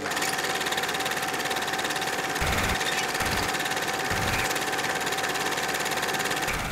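Film projector running: a steady rapid clatter of the film advancing, with a constant motor hum and three low thumps in the middle.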